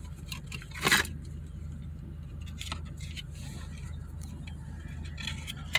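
Steady low hum of a car cabin, with rustling, scraping and clicking as paper and a small cardboard candy box are handled; one louder rustle about a second in.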